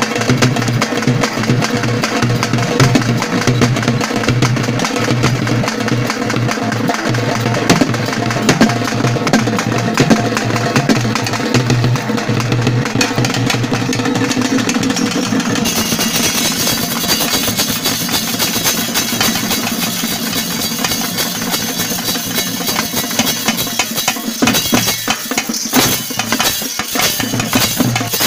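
Naiyandi melam folk band playing fast, dense drumming on barrel drums, with held tones running under the beat; the sound of the music changes about sixteen seconds in.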